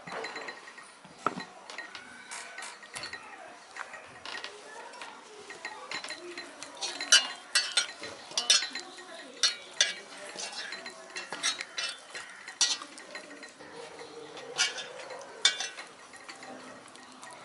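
Steel mixing bowl clinking and knocking, many sharp irregular clicks, as mushrooms are turned through a thick marinade with a spoon and then by hand.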